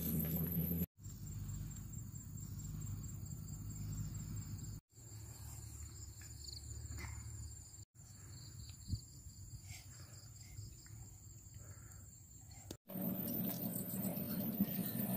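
Insects chirring outdoors, a steady high pulsing trill, over a low rumble on the microphone. The sound drops out abruptly four times, and there is one small click about nine seconds in.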